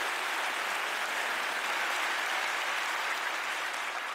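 Large congregation applauding in a big auditorium: a steady wash of clapping from many hands, easing slightly near the end.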